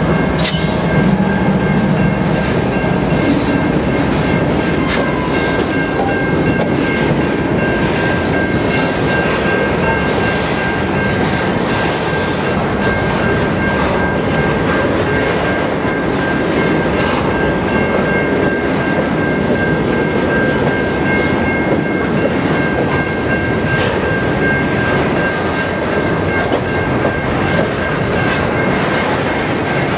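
Freight train of covered hopper cars rolling past close by: a steady rumble and clatter of wheels on rail, with a steady high-pitched ring over it. In the first few seconds the diesel engine of the trailing CN ES44DC locomotive drones as it passes and fades away.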